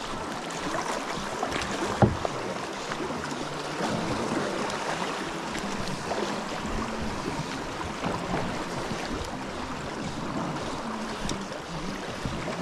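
Steady rush of flowing river water, with a single sharp knock about two seconds in.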